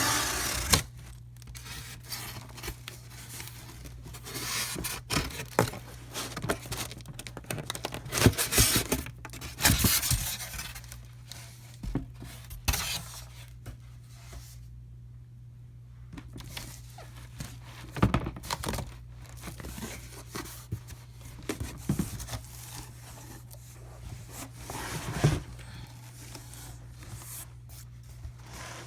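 Packaging being opened: irregular tearing, crinkling and scraping of tape, cardboard and plastic wrapping, with a few sharp knocks.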